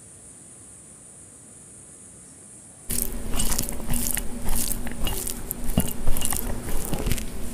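Faint steady hiss, then about three seconds in a sudden loud run of wet squishing and crackling as fingers mix mutton biryani rice with curry gravy.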